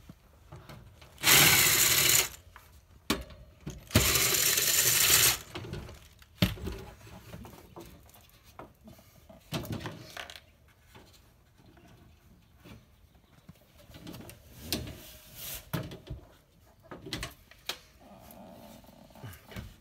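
Two loud hissing bursts, the first about a second long and the second a little longer, followed by scattered light clicks and knocks of tools and metal parts being handled.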